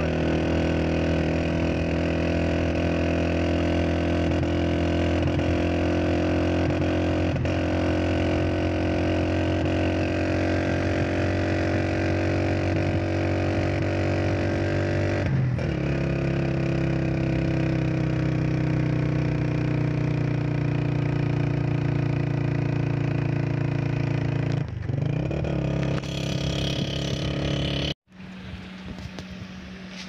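Motorcycle engine running steadily under way, heard from the bike as it is ridden, its note breaking briefly about halfway through and again near the end. A couple of seconds before the end the sound cuts off abruptly, leaving a much quieter steady hum.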